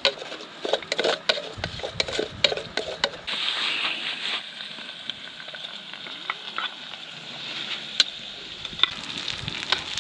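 Food frying in a pan: a run of sharp clicks and scrapes from a utensil, then a steady sizzle that starts suddenly about three seconds in, with a few more clicks later.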